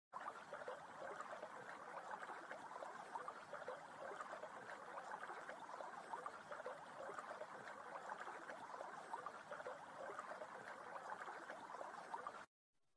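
Shallow stream babbling over stones: a steady rush of running water with many small splashes, cutting off suddenly near the end.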